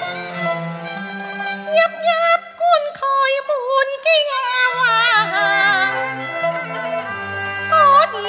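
Cantonese opera singing: a woman's high voice with wide vibrato enters about two seconds in over a traditional ensemble with bowed strings, which plays alone at first.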